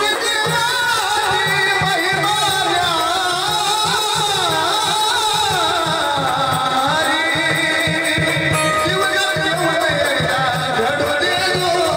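Jagran-gondhal devotional folk singing: a long, heavily ornamented vocal line over a steady drum beat.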